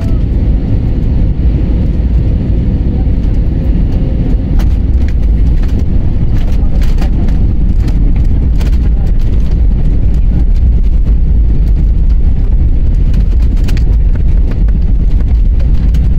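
Loud, steady low rumble of an airliner cabin heard from a window seat over the wing, with a spell of sharp rattles and knocks in the middle and another near the end.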